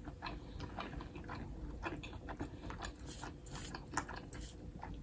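Faint, scattered wet clicks and smacks of fingers picking lobster meat out of butter sauce in a metal pan, mixed with soft chewing.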